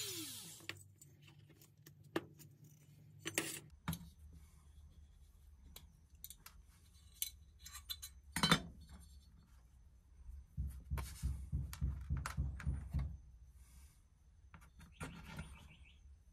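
A Dremel rotary tool's whine falling as it spins down, then small clicks and taps of die-cast metal and plastic toy parts handled on a cutting mat, with a stretch of quick rubbing and knocking near the middle as the wheel hubs are worked off the axle.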